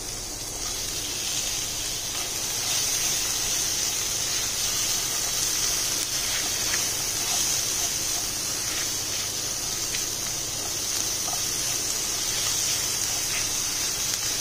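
Tomato wedges sizzling in hot oil with onions and spices in a frying pan: a steady hiss with scattered light crackles, growing louder over the first two seconds as the tomatoes go in. It cuts off suddenly at the end.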